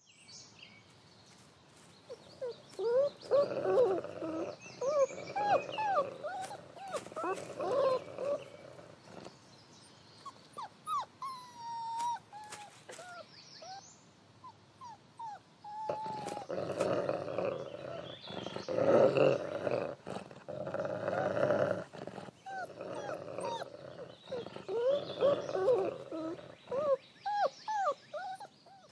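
Mexican gray wolf pups whimpering and squealing in many short rising-and-falling cries, mixed with rough growling as the adult wolf mouths and pins them. The cries come in two busy spells, thinning out for a few seconds in the middle.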